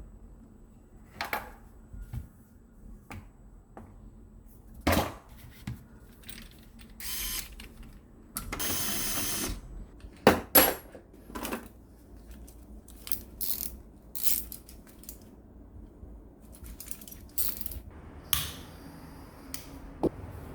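Small hand tools being handled: scattered clicks and knocks, with two longer scraping rasps, the longer about a second and a half, near the middle.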